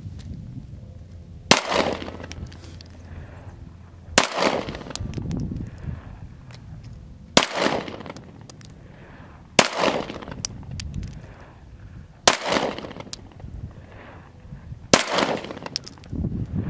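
Semi-automatic pistol fired six slow, aimed shots, one every two to three seconds, each sharp crack followed by a short trailing echo.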